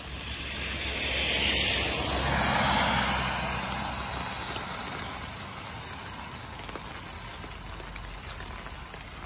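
A car passes on the wet road, its tyre hiss on the rain-soaked asphalt swelling, peaking about two seconds in and fading away, over the steady hiss of falling rain.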